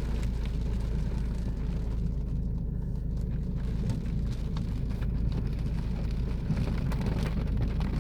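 Steady low rumble inside a car during a rainstorm, with scattered faint ticks of raindrops on the body.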